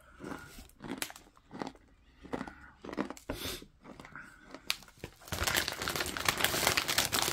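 Crunching bites and chewing on a crisp snack, a few separate crunches, then from about five seconds in a plastic snack bag crinkling continuously and more loudly as it is handled.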